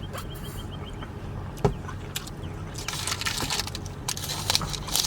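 A sharp click about a second and a half in, then from about halfway on a dense crackling of paper being crinkled: a McDonald's hash brown wrapper being handled and pulled open.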